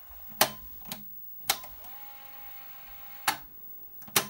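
Commodore Datasette cassette drive's piano-key buttons clacking as they are pressed and latched, about five sharp clacks. Between the clack about one and a half seconds in and the one just after three seconds, the tape transport runs with a steady whine.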